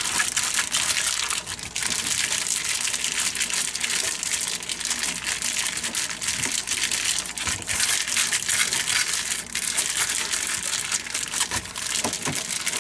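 Clear plastic food bag crinkling and rustling continuously as hands knead and squeeze raw chicken breast and oil inside it.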